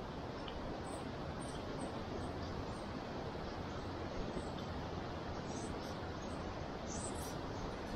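Steady outdoor rushing background, with faint short high chirps now and then, a few more near the end.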